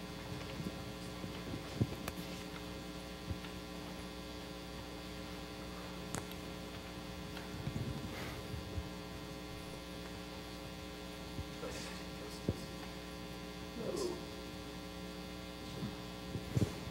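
Steady electrical hum made of several tones, with faint scattered rustles and knocks.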